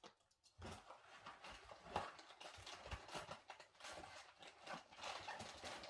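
Faint rustling and handling noise with many light clicks and knocks, starting about half a second in, as a sandal is handled and put on.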